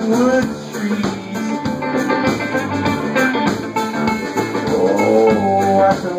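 Live blues band playing an instrumental passage: amplified harmonica with bending, gliding notes over strummed banjo, electric guitar and a drum kit.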